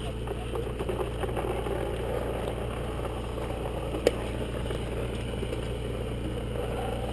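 A steady low mechanical hum, with a single sharp click about four seconds in.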